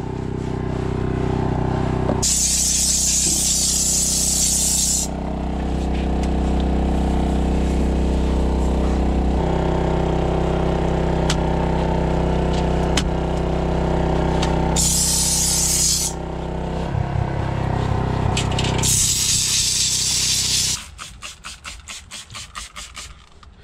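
Steam cleaner jetting steam in three hissing bursts over a steady low hum. Near the end come a run of quick pumps of a hand trigger spray bottle.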